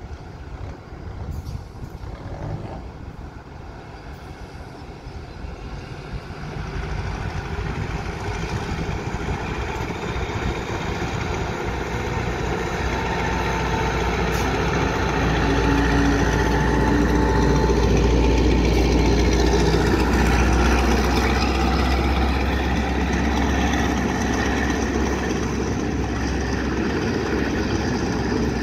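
Alstom diesel locomotive hauling a passenger train, its engine sound building steadily as it approaches and loudest as it passes close by, after which the coaches run past.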